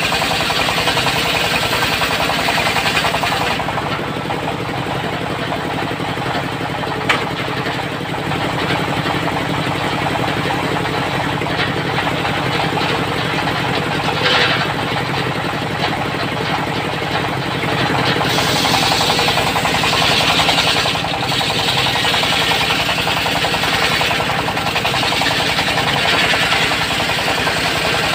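Single-cylinder diesel engine running steadily, driving a circular saw table. Its blade cuts teak in stretches, a rasping hiss over the engine near the start and through most of the last third, with one sharp click about seven seconds in.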